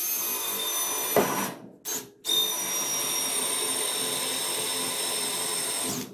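Cordless DeWalt drill boring through a wooden workbench top. It runs for about a second and a half, stops, gives a short burst, then runs steadily for about four seconds before stopping.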